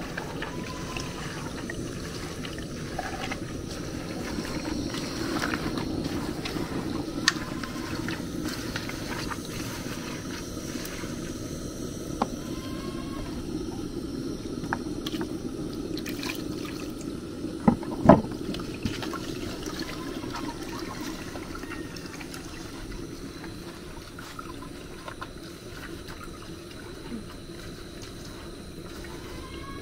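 Hands squeezing and kneading wet pounded palm nut fibre in an aluminium pot set in a plastic bowl: wet squelching and sloshing, with the palm nut juice trickling into the bowl as it is extracted. Scattered small clicks, and a couple of sharp knocks about eighteen seconds in.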